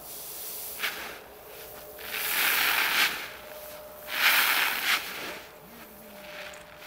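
Paddy rice being shovelled and tossed by hand, with a short scrape of the shovel and then the falling grain hissing down onto the pile twice, each shower lasting about a second.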